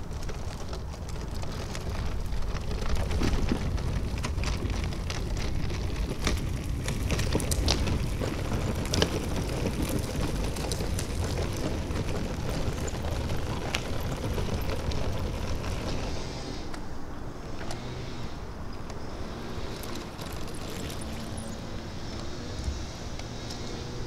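Landing-gear wheels of a large model airliner rolling over rough asphalt as it is towed by hand: a steady low rumble with scattered sharp clicks, quieter in the last several seconds.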